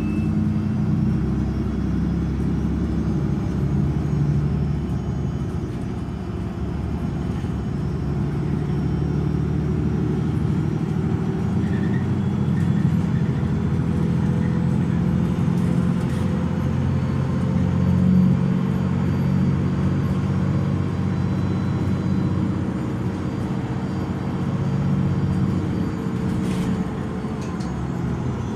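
MAN Lion's City Euro 6 city bus driving along, heard from inside the passenger cabin: its D0836 inline-six diesel and Voith DIWA 6 automatic gearbox run steadily, with a faint whine that slowly falls in pitch through the middle.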